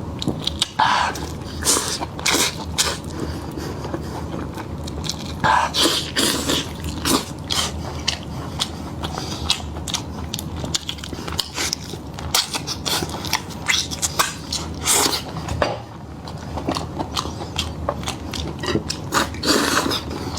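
A person biting and chewing food close to the microphone, with many short wet smacks and clicks at irregular spacing.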